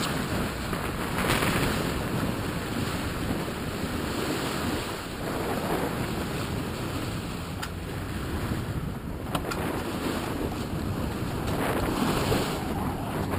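Wind buffeting the microphone over the rush of sea water along a sailboat's hull, swelling and easing every few seconds.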